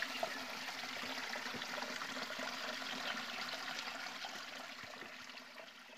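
Flowing stream water, a steady rushing that fades out near the end.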